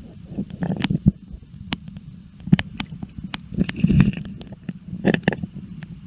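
Muffled underwater sound picked up by a submerged camera: a low rumble of moving water, broken by scattered sharp clicks and ticks, with a few louder knocks about midway.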